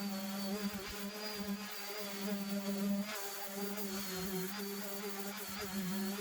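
Electric power sander running on Bondo filler over a dashboard, a steady buzzing hum whose pitch dips briefly a few times as it is pressed against the work.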